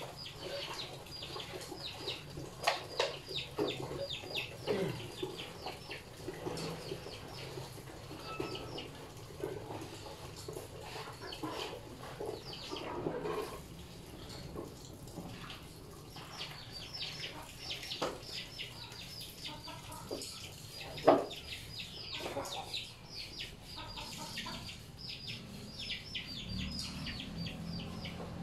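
Clothes being washed by hand in plastic tubs: water splashing and sloshing, with clicks and knocks from the handling and one sharp knock about two-thirds of the way through. Birds call throughout, with quick repeated high chirps.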